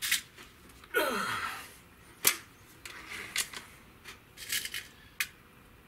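Hatsan 95 Vortex .22 break-barrel air rifle being cocked: as the barrel is broken open, the gas piston gives a short whoosh falling in pitch about a second in, then a sharp click a little after two seconds. Light clicks follow as a pellet is handled and loaded into the breech.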